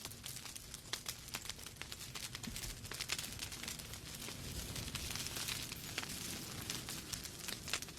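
Logs burning in a fireplace, crackling with many quick irregular pops over a steady hiss of flames.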